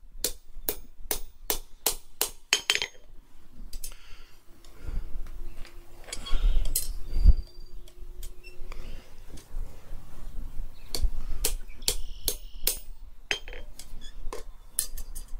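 Hand hammer striking tong reins laid across a hot iron bar on the anvil, fullering a groove behind the end to form a ball: a quick run of sharp metal blows, about four a second, then a gap with a few low thumps, then another run of blows near the end.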